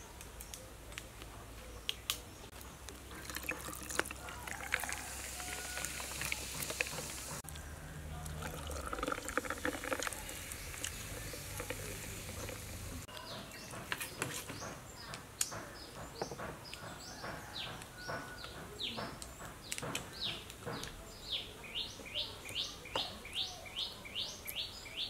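Cola poured from a plastic bottle into a glass, with hissing and fizzing. In the second half, a bird calls over and over in short falling chirps, about two a second.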